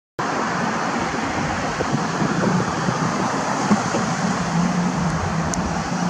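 Road traffic on a busy multi-lane street: the steady noise of passing cars, starting abruptly just after the start.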